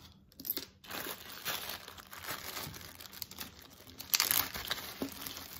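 Clear plastic zip-top bag crinkling as it is handled and pulled open at its zip seal, with a louder burst of crinkling about four seconds in.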